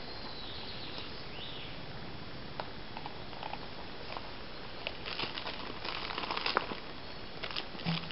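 Footsteps and rustling in dry woodland leaf litter, with a run of crackles and clicks about five to six and a half seconds in and a few more near the end, over a steady background hiss. Two short high chirps near the start.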